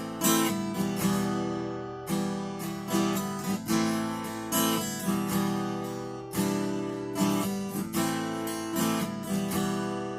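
Acoustic guitar playing an instrumental passage, strummed chords that each ring out and fade before the next.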